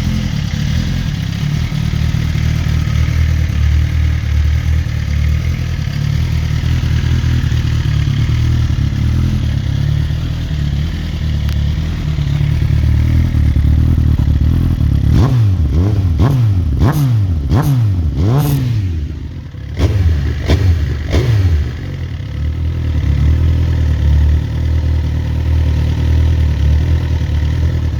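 Suzuki GSX-R1000 inline-four sport bike engine idling, then revved in a quick series of sharp throttle blips about halfway through, each rising and falling back, before settling to idle again.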